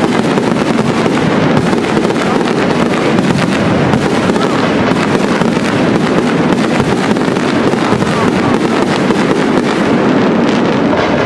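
Aerial fireworks display: a dense, unbroken barrage of shell bursts and crackle, many bangs in quick succession throughout.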